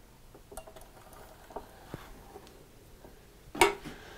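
Light handling noises: scattered small clicks and taps as a chisel is positioned and moved under a microscope, with one brief, louder sound about three and a half seconds in.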